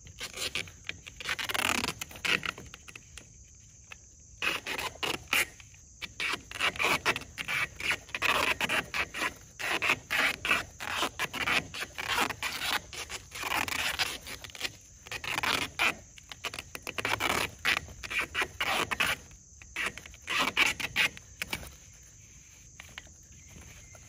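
Duct tape being pulled off the roll in repeated rasping rips and wrapped around the joint between a corrugated plastic drain pipe and a PVC pipe, with short pauses between pulls; the ripping stops near the end. Crickets chirp steadily behind.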